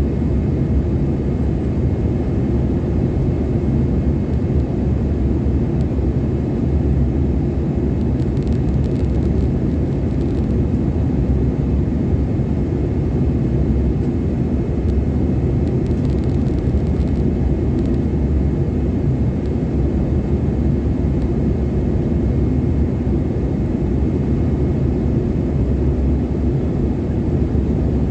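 Steady low drone of an airliner's engines and rushing air, heard from inside the passenger cabin.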